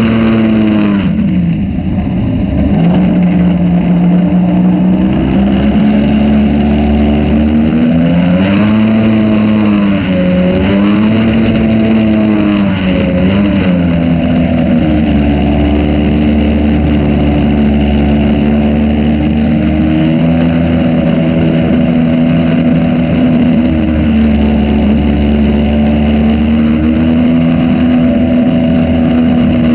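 Outboard motor on a jet-drive jon boat running under way. Its pitch falls and climbs again a few times as the throttle changes, then holds steady through the second half.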